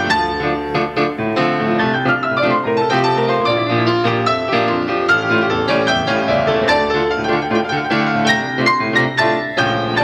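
Piano music: a dense passage of many quickly struck notes over sustained low bass notes.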